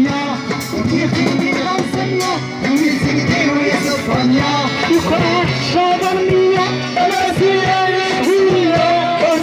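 Live band music: a voice singing a wavering melody over plucked string instruments and a steady percussion beat.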